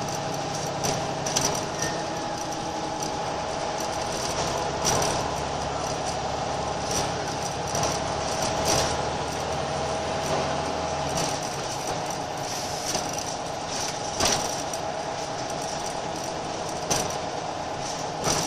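Scania L94UB Wright Solar single-deck bus under way, heard from inside the saloon: the engine and driveline drone with a steady wavering whine, and frequent short rattles and knocks come from the body and fittings. The deepest part of the drone drops away about eleven seconds in.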